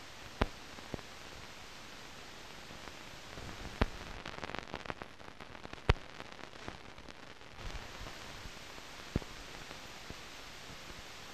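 Steady hiss from an old film sound track, with a few sharp clicks and pops and a patch of denser crackle in the middle.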